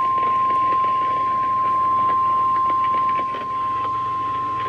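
NOAA Weather Radio 1050 Hz warning alarm tone: one steady, loud, high beep held without a break, over faint radio hiss.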